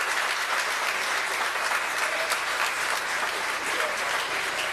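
Crowd applauding and cheering, greeting the Falcon 9's first-stage main engine cutoff and stage separation.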